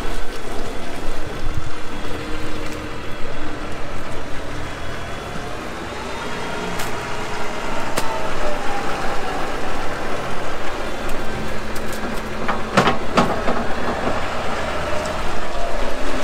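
Farm tractor engine running and revving up and down as its front loader lifts and tips a load of dung into a tipping trailer. There are a few sharp knocks about thirteen seconds in.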